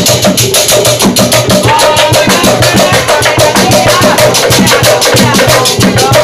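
Obrog percussion music played to wake people for the pre-dawn sahur meal: drums and wooden percussion beaten in a fast, even beat.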